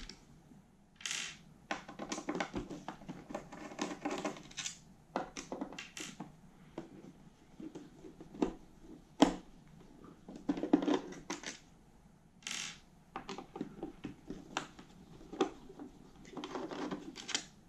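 Hand screwdriver backing out screws from the wooden base of a cassette deck: irregular scratchy turning strokes, with small metal clicks as the screws come loose.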